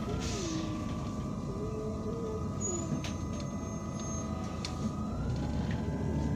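A city bus's Iveco Cursor 8 diesel idling, heard from inside the cabin with a steady whine. About five seconds in, the low rumble strengthens and a whine starts rising in pitch as the bus pulls away.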